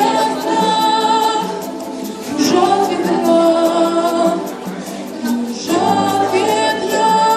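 A vocal group singing a slow song in harmony, holding long notes, with the sound easing off twice, about two seconds in and again around five seconds in.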